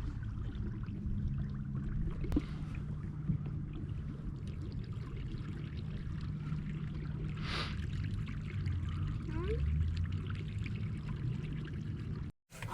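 Canoe moving through water: water trickling and splashing along the hull over a steady low hum, with a couple of light knocks. It cuts off suddenly near the end.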